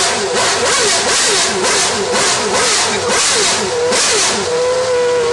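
Renault Formula One car's engine being blipped on the throttle in quick, even repeats, about three a second, its pitch rising and falling each time. Near the end it settles into a steady high idle.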